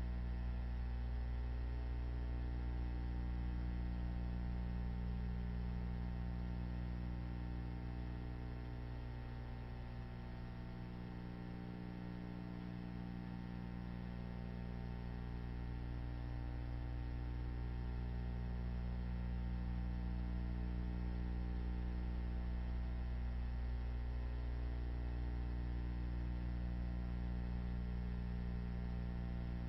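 Steady electrical mains hum with a stack of overtones, unchanging throughout, with no other sound.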